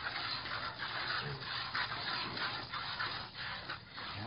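A piglet suckling at a cow's teat: sucking noises repeating about two or three times a second.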